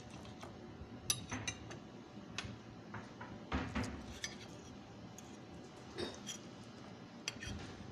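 Metal table knife and fork clinking and scraping against a plate while cutting into a soft omelette: scattered light clicks, a few close together about three and a half seconds in and again around six seconds in.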